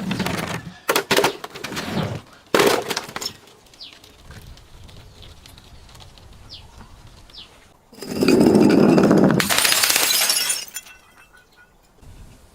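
Glass bottles smashing: several sharp breaks in the first three seconds, then a longer, loud crash of breaking glass lasting about three seconds, starting about eight seconds in.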